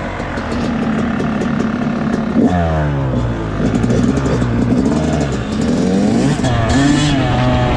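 2019 Yamaha YZ250's single-cylinder two-stroke engine under way, its pitch rising and falling several times as the throttle is opened and closed.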